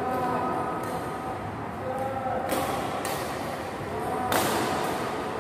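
Badminton rackets striking shuttlecocks in a feeding drill: sharp hits about every two seconds, ringing in a large hall, with the loudest hit past the middle.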